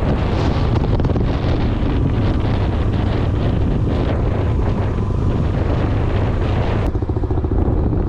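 Motorcycle engine running on the move, under a heavy rush of wind buffeting the microphone.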